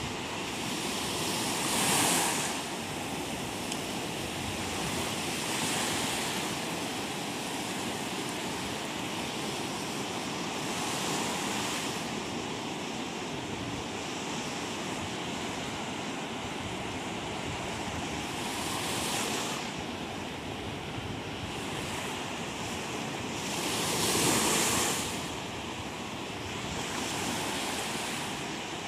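Surf breaking on a sandy, rocky shore: a steady wash of noise that swells each time a wave breaks, every few seconds, with the two biggest waves about two seconds in and near the end.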